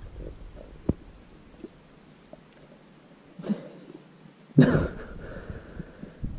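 Two short sneeze-like bursts of breath: a small one about three and a half seconds in and a loud, sharp one about a second later.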